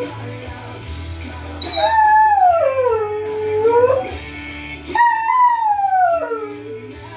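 Belgian Shepherd (Groenendael) dog howling along to recorded music: two long howls. The first starts about one and a half seconds in, slides down in pitch and rises again at its end; the second starts about five seconds in and falls in pitch.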